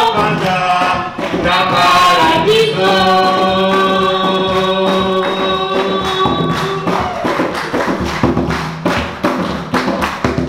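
Choir singing a gospel worship song with percussion, holding one long chord in the middle, then with the drum beats coming to the fore near the end.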